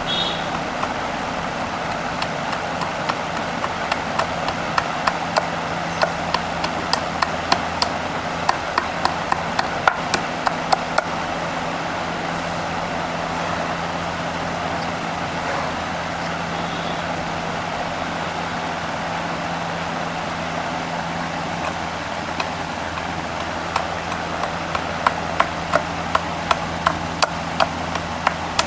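A motor hums steadily throughout, while sharp knocks repeat about two or three times a second in two runs, one starting a few seconds in and another near the end.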